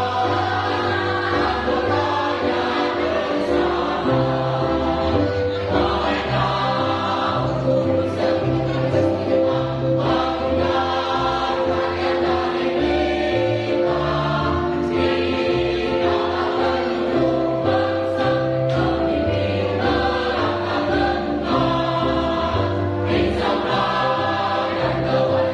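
A school choir singing in parts, with long held notes over a changing low line.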